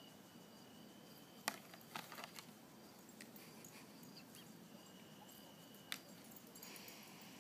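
Quiet outdoor ambience with a faint, steady, high insect trill that comes and goes. A few sharp clicks cut through it: one about a second and a half in, a short cluster just after, and another near the end.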